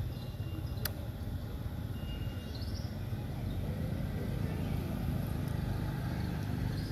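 Steady low outdoor rumble, with one sharp click about a second in and a few faint high chirps.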